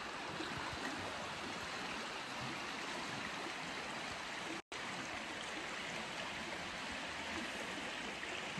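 Forest stream running, a steady rush of flowing water, cut off for an instant a little past halfway.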